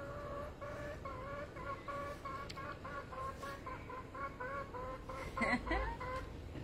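Hen clucking: a steady run of short, evenly spaced calls, about three a second, with one louder call about five and a half seconds in.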